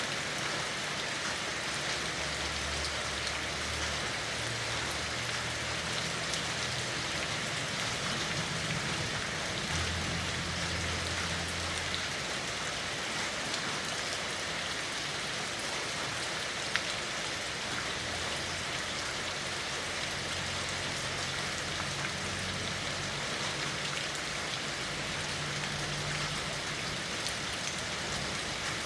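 Steady rain falling, an even hiss of drops on surfaces, with a low hum coming and going underneath.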